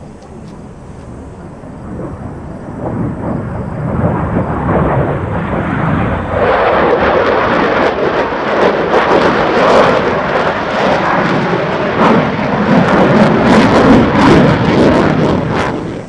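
Navy fighter jet flying past, its engine noise building over the first few seconds, then loud with a ragged crackle for most of the rest before cutting off abruptly at the end.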